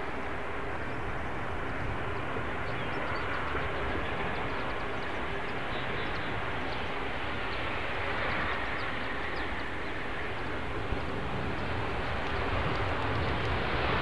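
Boeing 737-800's CFM56 jet engines on landing, a steady rushing noise with a faint whine, growing louder near the end.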